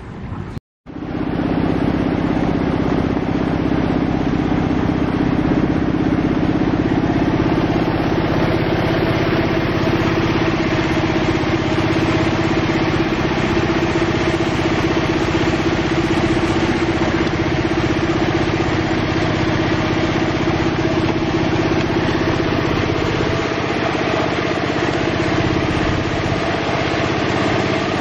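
A small engine running steadily at an even pitch, at the machine spraying feed pellets into a pond of pangasius catfish. It starts after a short cut about a second in.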